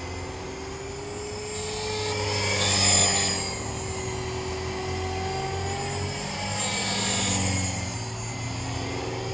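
T-Rex 450 electric RC helicopter in flight, its rotor and brushless motor whine steady in pitch and swelling louder about three seconds in and again around seven seconds as it passes. A squeal from a bad main shaft bearing runs through the flight.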